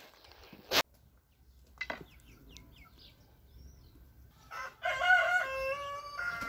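A rooster crowing once, a long call in several stepped notes beginning about four and a half seconds in and held to the end. A sharp click comes a little under a second in, with faint chicken clucks and chirps between.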